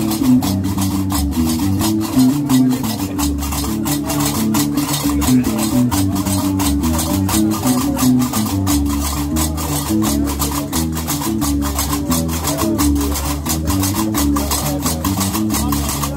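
Diwan music: a gumbri (three-string bass lute) plucks a repeating low melody, driven by the fast, steady clatter of qraqeb iron castanets.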